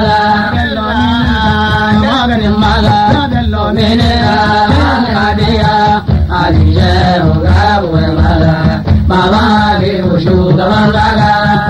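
Hausa praise song: a lead voice sings a winding, ornamented melody over steady drum accompaniment, with a short break in the line about halfway through.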